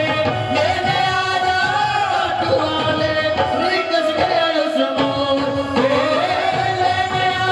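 Devotional Hindi bhajan music: a melodic line with singing and instrumental accompaniment.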